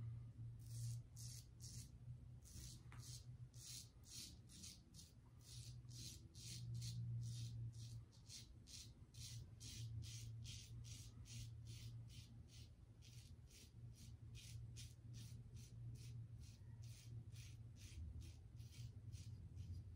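Soft, rhythmic scraping of an Aylsworth double-edge safety razor cutting stubble through lather, in short strokes about two to three a second.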